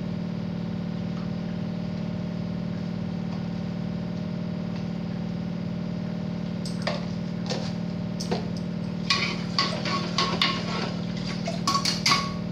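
A steady low mechanical hum throughout. From about seven seconds in, light clicks and clatters of small plastic kitchen containers and their lids being handled, a few at first and then many in quick succession near the end.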